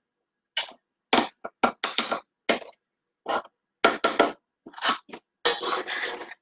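A dozen or so short, irregular scrapes and knocks of a mixing bowl and utensils being handled at a stand mixer, with a longer scrape near the end.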